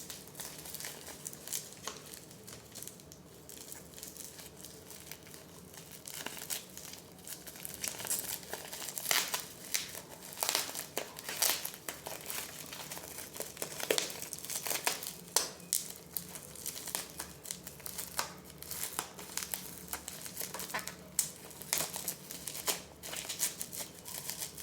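Packaging being crinkled and torn open by hand to get at a silver bar: irregular crinkling and crackling, busier from about eight seconds in.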